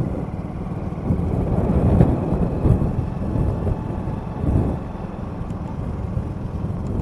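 A motorbike running steadily while being ridden through traffic: low engine rumble with road noise.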